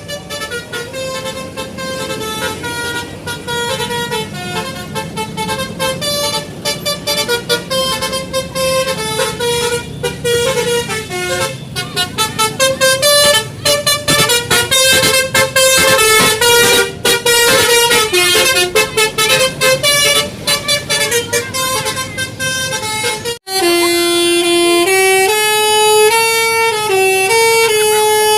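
Bus 'telolet basuri' multi-tone horn playing a melody in fast, stuttering notes. About 23 seconds in it stops abruptly, and a slower tune of longer held notes follows.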